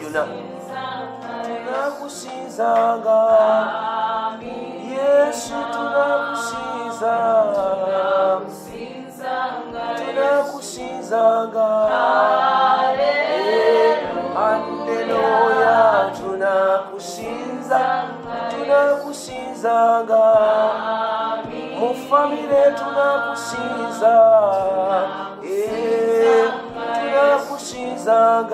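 Small gospel choir singing a cappella in several voice parts, in long sung phrases.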